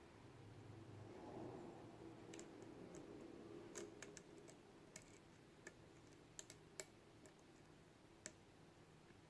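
Lock pick and tension tool working the pin stack of a Mul-T-Lock Jr. padlock core: faint, scattered small metallic clicks, about ten, as the pins are lifted and set.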